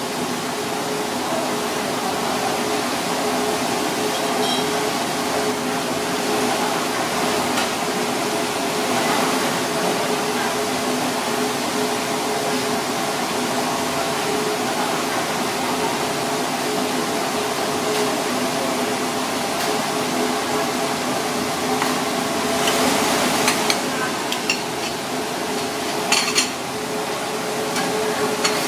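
Steady kitchen hiss with a low hum throughout, and a few clinks of chopsticks and dishes in the second half as fried fish is plated.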